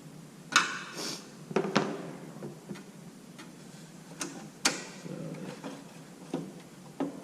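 A series of sharp clicks and knocks as the Jeep YJ's headlight trim piece is handled and fitted. The loudest come about half a second in and near the middle, with lighter taps later.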